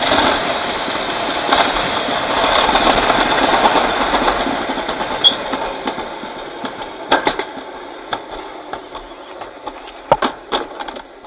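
Summer bobsleigh sled running down its stainless-steel trough track: a loud, steady rattling rumble that dies away from about halfway through as the sled slows toward the finish, with a few sharp knocks near the end.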